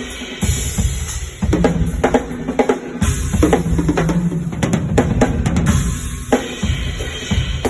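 Drum kit played loud at a sound check, kick drum, snare and cymbals hitting in a steady groove, with a low held tone underneath in places.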